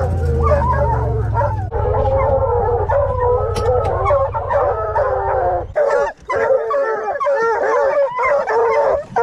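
Several bear hounds bawling and howling together in a dog box, waiting to be turned loose on a track. A vehicle engine idles underneath and cuts off a little over halfway through.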